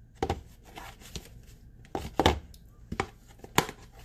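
Metal kitchen tongs clicking and knocking against plastic containers while a chicken roll-up is dredged in flour: about six scattered sharp knocks, the loudest just past halfway.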